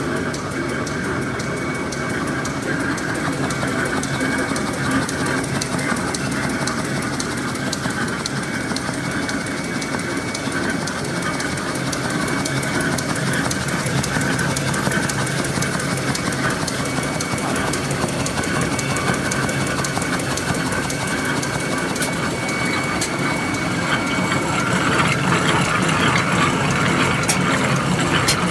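Two-lane automatic N/Z-fold hand towel paper machine running: a steady mechanical clatter from its feed and folding rollers, with a thin steady whine over it. It gets a little louder near the end.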